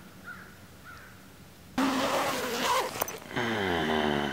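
A few faint crow caws, then, a little under two seconds in, a sudden loud rustling rush, followed near the end by a loud low-pitched drone that dips in pitch and then holds steady.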